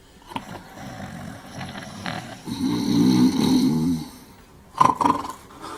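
Two men snoring loudly in their sleep, the long drawn snore about two and a half seconds in being the loudest, with short sharp sounds near the end.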